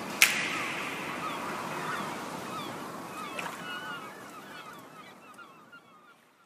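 Background music fading out, with one sharp hit just after the start and a run of short gliding, chirp-like notes as it dies away.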